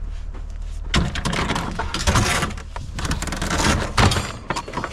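Heavy scrap metal piece being handled and moved, with a run of clanks, knocks and scraping starting about a second in and stopping about four seconds in.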